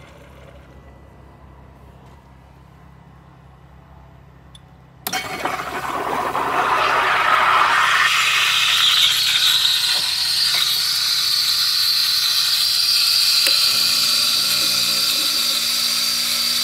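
Breville espresso machine's steam wand frothing milk in a stainless jug: a loud hiss cuts in suddenly about five seconds in, rises in pitch over the next few seconds, then holds steady. Before it there is only a low steady hum.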